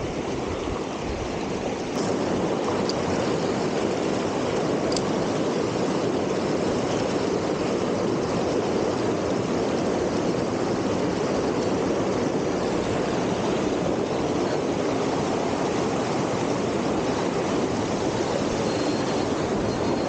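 Rushing mountain stream tumbling over boulders in white-water rapids: a steady, even rush of water, slightly louder after about a second.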